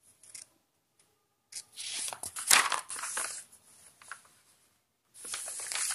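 Paper pages of a notebook being turned and handled, with a crinkling rustle in two spells. The longer spell starts about a second and a half in and has a sharp crackle in the middle; a shorter one comes near the end.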